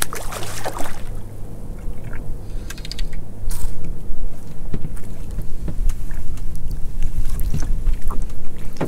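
Spinning reel being wound and clicking as a fish is played on a bent rod and brought aboard a small boat, over a steady low hum from the boat.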